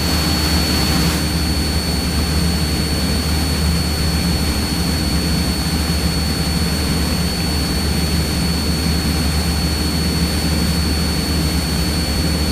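Cessna 172's piston engine and propeller droning steadily in cruise, heard inside the cabin, with a thin steady high tone above the drone.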